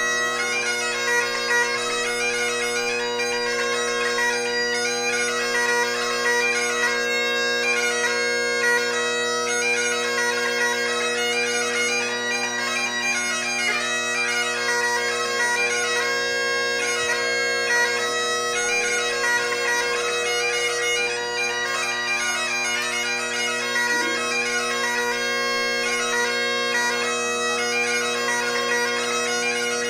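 Great Highland bagpipe played solo: steady drones sounding under a chanter melody whose notes change quickly throughout.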